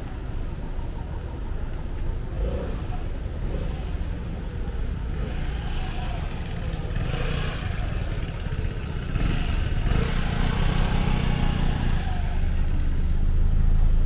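City street traffic: a motor vehicle's engine running close by, with a steady low hum that grows louder toward the end.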